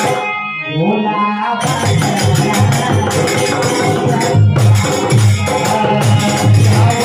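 Live Indian devotional music: a dholak drum beating a steady rhythm with rattling hand percussion over a harmonium. The sound thins out for about the first second and a half, and the full beat comes back in after that.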